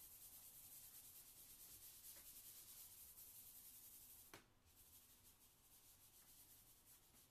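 Hand rubbing charcoal into Bristol paper: a faint, dry swishing of skin on paper in quick repeated strokes. A single tick about four seconds in, after which the rubbing is softer.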